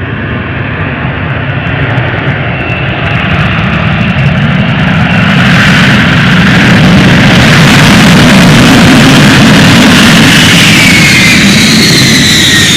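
F-35 fighter jet engine running loud. The rumble swells over the first several seconds and then holds steady, and near the end high whines fall in pitch.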